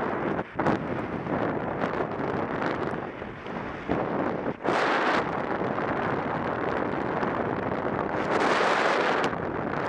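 Wind rushing over the camera's microphone in a skydive, a steady roar that swells and drops in gusts, with short dips about half a second and four and a half seconds in.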